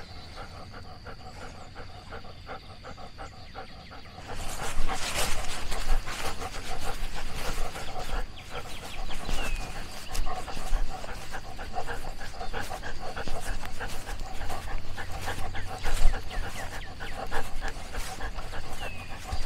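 A dog panting fast and steadily right at the microphone, from a camera worn by the dog itself. The panting gets louder about four seconds in.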